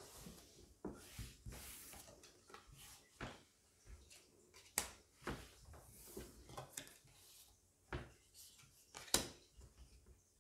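Playing cards being picked up, slid and laid down on a wooden tabletop: soft rustling with scattered light taps, two sharper ones about five seconds in and near the end.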